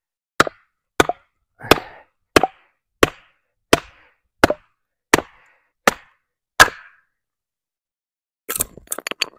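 Wooden mallet knocking down into the top of an upright log to split it: eleven even, sharp blows about two-thirds of a second apart. Near the end comes a quick run of cracking and crackling as the wood fibres tear and the split log is pulled open.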